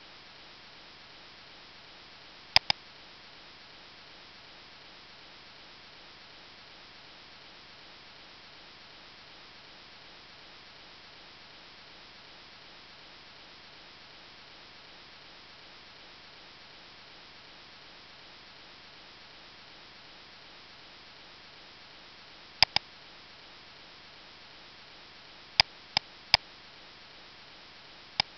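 Computer mouse clicks over a steady hiss of microphone and room noise: a double click a few seconds in, then a long stretch of hiss only, then another double click and a quick run of single clicks near the end.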